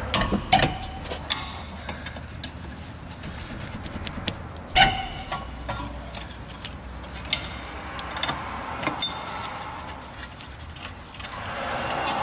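Metal wrench clinking on the steel caliper bolts of a rear brake caliper as the bolts are loosened: scattered metallic clinks with a slight ring, the loudest about five seconds in, over a steady low hum.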